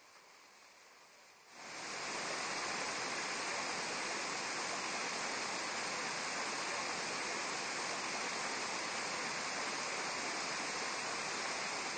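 Steady rushing and splashing of a fountain jet, starting about a second and a half in and holding even.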